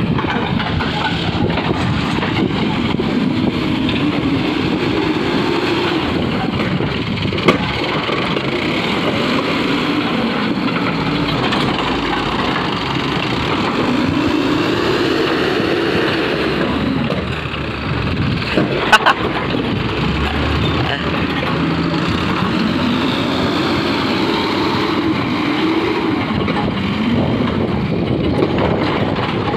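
Backhoe loader's diesel engine running and revving up and down as it works its loader and backhoe arms. A sharp knock comes about seven and a half seconds in, and a louder cluster of knocks about nineteen seconds in.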